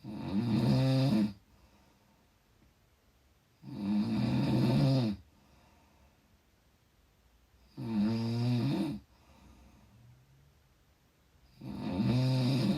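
A person snoring in a steady rhythm: four snores of about a second and a half each, coming roughly every four seconds, with quiet between them.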